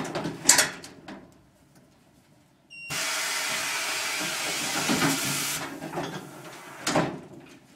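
Lamb weighing and sorting crate at work: a few knocks, then a sudden steady hiss that lasts nearly three seconds and fades, and a sharp clank near the end.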